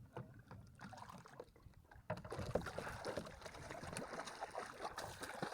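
Water sloshing around a fishing kayak, with scattered small knocks and clicks of gear against the boat.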